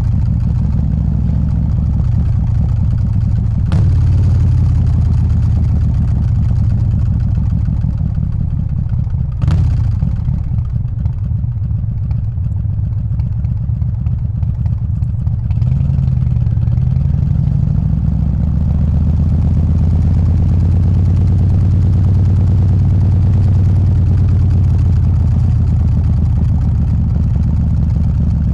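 Harley-Davidson Softail's 124-cubic-inch S&S Evo V-twin running at low revs, a deep steady note. A sharp click about four seconds in and another about nine seconds in; about sixteen seconds in the engine note dips, then picks back up and holds steady.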